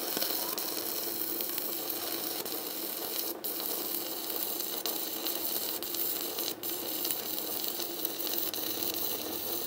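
Stick-welding arc from an Arc200 welder burning a 2.6 mm electrode on steel plate: a steady crackling sizzle that drops out briefly twice. The current is set at about 105 amps, which the welder calls too much heat for the rod.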